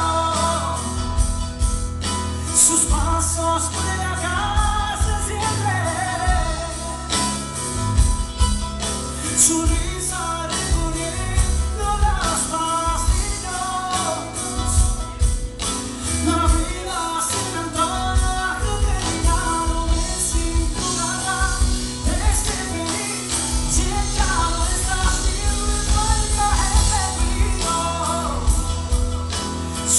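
Live band playing a pop ballad, with a male lead singer singing into a handheld microphone over strong, steady bass.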